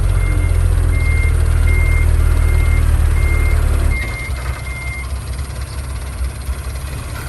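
A heavy diesel machine running loudly with its reversing alarm beeping about once every three-quarters of a second; the beeping stops about five seconds in. The engine drops in loudness about four seconds in.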